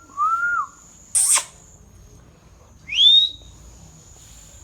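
Ringneck parrot calling: a short rising-and-falling whistle, a loud harsh screech about a second in, then a rising whistled note around three seconds in.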